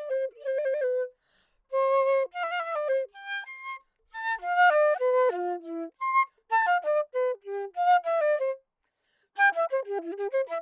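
Flute playing a melody of quick notes in short phrases, with brief pauses between phrases.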